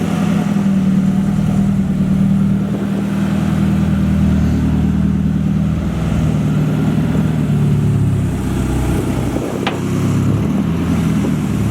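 Nissan 240SX engine running at a steady, low, even speed.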